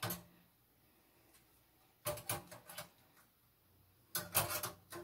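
Metal tongs clicking against a wire oven rack as chicken thighs are turned over. There is one tap at the start, then a quick run of clinks about two seconds in and another about four seconds in.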